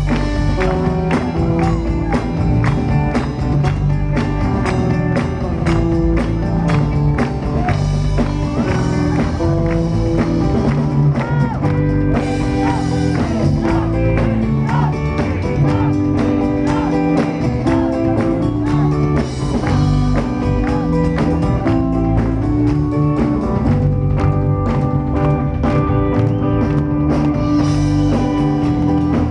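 Loud rock and roll music played by a band with drums, electric guitar and bass, with a steady beat throughout.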